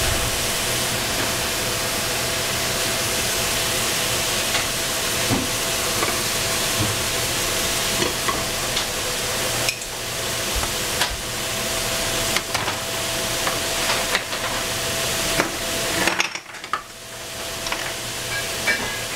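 Vegetables frying in a pan with a steady sizzle while being stirred, with occasional clicks and scrapes of the utensil against the pan and a faint steady hum underneath. The sizzle briefly dies down about sixteen seconds in.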